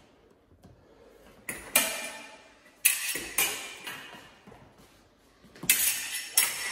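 Fencing foil blades clashing and beating against each other in ringing metallic clinks: a pair about a second and a half in, two more a second or so later, then a quick series of clashes near the end.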